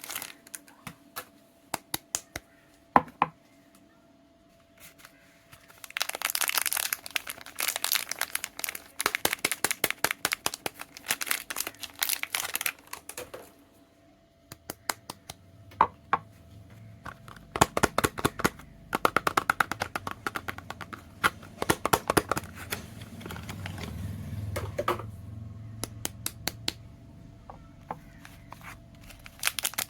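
Soap packaging being unwrapped by hand: the wrapper crinkles and tears in two long spells, with scattered sharp clicks and taps between them.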